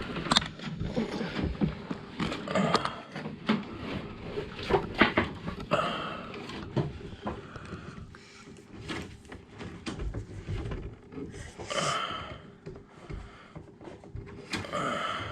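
Irregular clicks, knocks and rubbing from handling the inspection camera's push cable as it is fed down a sewer pipe, with short rustling bursts about six and twelve seconds in.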